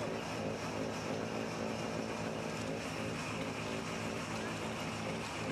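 An engine running at a steady speed, with an even, unchanging hum.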